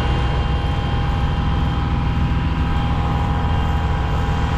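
Large ship's diesel machinery running steadily close by: a low, even drone with a few steady humming tones over it.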